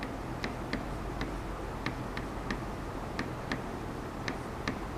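Light, unevenly spaced ticks of a pen tip tapping and dragging on the glass of an interactive board while words are handwritten, two or three a second, over a faint steady low hum.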